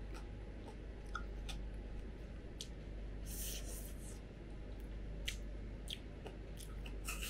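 Close-up eating sounds: wooden chopsticks clicking against a glass bowl while noodles are lifted and stirred, with chewing. About three seconds in comes a short, noisy, hissy burst, such as a slurp or crunch.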